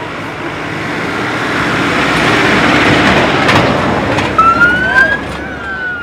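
Siren of an RNLI lifeboat launch vehicle on a call-out, over the rushing noise of the vehicle moving. The rush swells to a peak midway. Then a siren tone rises about four seconds in and begins a long, slow fall.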